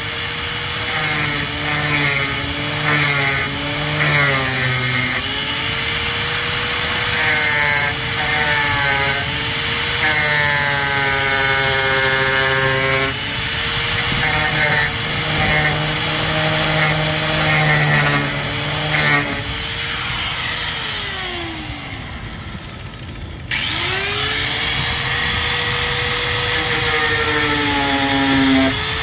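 Handheld power tool cutting holes, its motor whine sagging and recovering again and again as it bites into the material. About two-thirds of the way through it winds down, then revs straight back up and carries on cutting.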